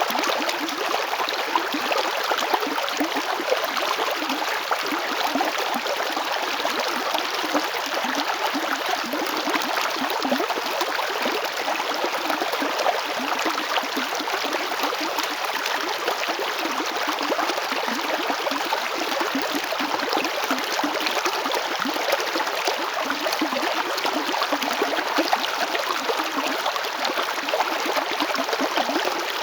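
A river flowing steadily over stones: continuous rushing and splashing water with fine gurgles.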